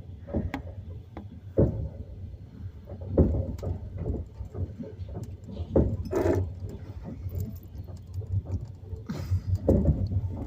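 Passenger train running, heard from inside a compartment carriage: a steady low rumble with irregular knocks and rattles of the wheels and carriage.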